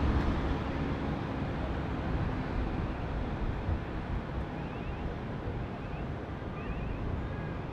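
Jet engine rumble of a distant Airbus A380 on landing, fading over the first few seconds, with wind buffeting the microphone. A few faint high chirps come in the second half.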